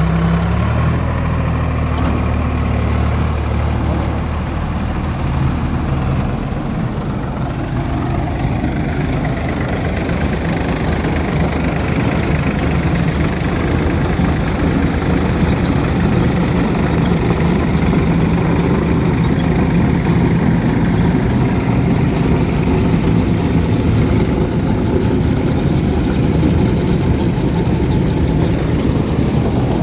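Heavy diesel machinery engine running steadily. It holds an even low hum for the first several seconds, then turns rougher and slightly louder.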